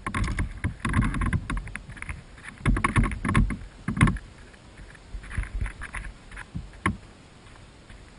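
Water sloshing and splashing with irregular knocks against a kayak, busiest in the first four seconds and then thinning out, with one sharp knock near the seven-second mark.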